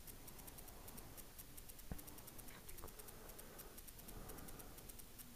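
Near silence, with one faint click about two seconds in and a couple of fainter ticks shortly after.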